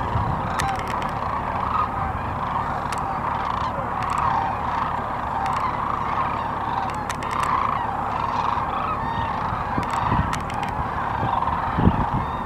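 A large flock of sandhill cranes calling together: a continuous chorus of many overlapping rolling, bugling calls, over a low steady rumble.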